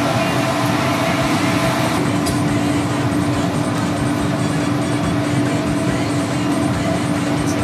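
Steady rushing noise with a constant low hum from the burner and blower heating a glassblowing workshop's furnace, running continuously while molten glass is worked.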